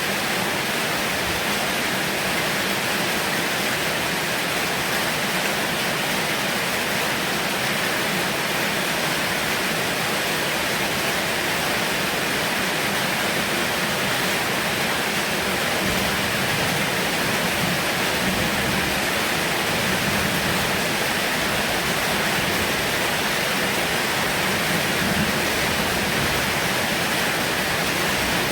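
Heavy rain falling steadily as an even hiss. A faint low rumble comes and goes in the second half.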